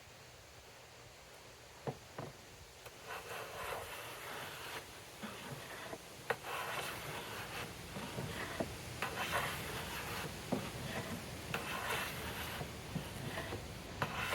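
Wood being worked with hand tools: two sharp knocks, then a run of uneven scraping and rubbing strokes on wood with small clicks among them.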